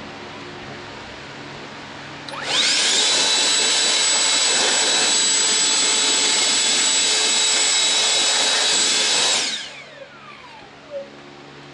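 A small electric motor in a power tool spins up with a rising whine, runs at a steady high pitch for about seven seconds, then cuts off and winds down with a falling whine.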